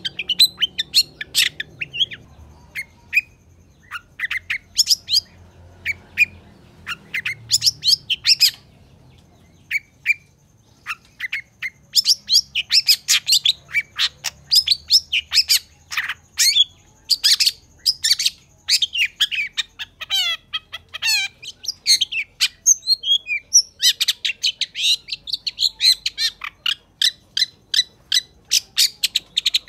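Long-tailed shrike (cendet) singing: long runs of short, sharp, high chirps. There is a brief pause about ten seconds in, a pair of fast falling trills around twenty seconds, and a rapid rattle of notes near the end.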